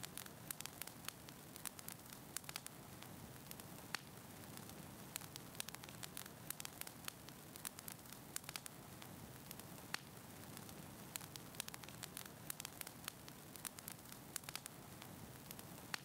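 Fire crackling: frequent irregular sharp pops and snaps over a steady low hiss.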